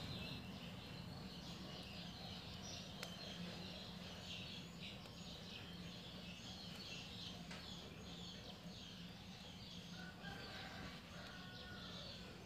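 Faint, rapid high-pitched chirping throughout, over a low steady hum, with a couple of faint clicks.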